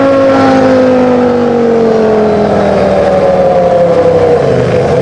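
Williams FW15C Formula One car's Renault V10 engine running hard: one smooth, unbroken note that falls slowly in pitch, with no steps for gear changes, because the continuously variable transmission changes ratio by itself.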